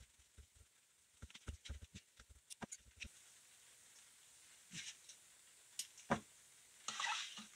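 Faint handling noise of fingers working monofilament fishing line while tying a knot: a quick run of small clicks and ticks in the first few seconds, then short rubbing sounds near the end.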